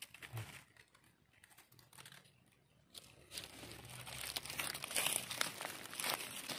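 Dry fallen leaves and twigs rustling and crackling. The sound is faint at first, goes almost quiet, then becomes a dense, irregular crackle from about three seconds in.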